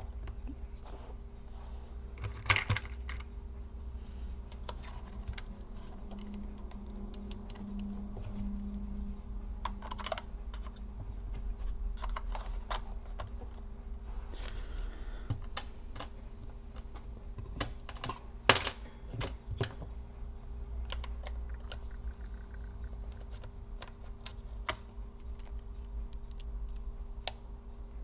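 Scattered small clicks and taps from a Dell Latitude E4310 laptop's plastic and metal parts being handled and screwed back together by hand. Two louder knocks come about two and a half seconds in and again midway, over a faint steady hum.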